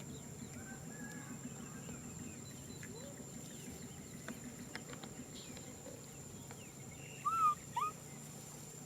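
Faint scattered chirps throughout, then two short, louder arched animal calls in quick succession near the end.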